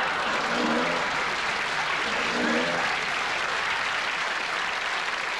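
Studio audience applause, steady at first and dying away toward the end.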